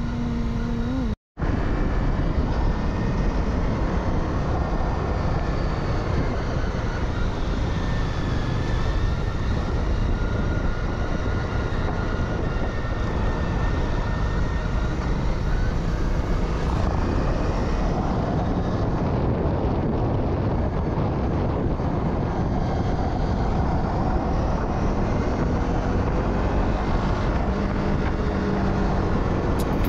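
Honda CRF250 single-cylinder dirt bike engine running under way, under a steady rush of wind on the microphone. A brief dropout comes about a second in.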